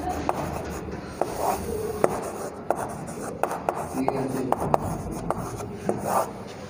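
Chalk writing on a blackboard: a quick, irregular run of short taps and brief scrapes as the letters and an arrow are drawn.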